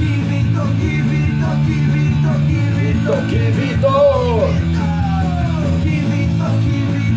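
Rock music playing, with electric guitar and a steady bass line.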